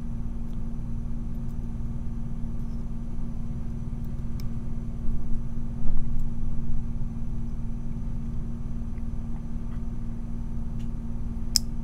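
Steady low background hum with one held tone, over which a few faint light clicks come from a flag pick working the spring-loaded pins of a brass Yale dimple lock cylinder under tension. There are some low handling bumps around the middle and one sharper click near the end.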